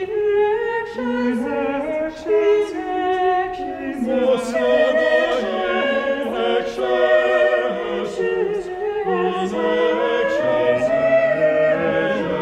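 Choir singing sacred music a cappella in several voice parts, in harmony, with held notes that change about once a second; a lower part comes in near the end.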